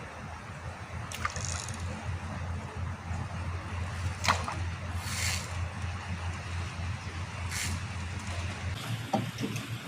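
River water sloshing against a small boat, with a few short splashes or knocks, over a steady low hum.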